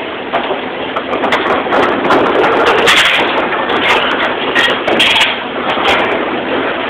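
Commercial dish room clatter: a steady running noise with frequent sharp clinks and knocks of dishes, racks and plastic bus tubs being handled.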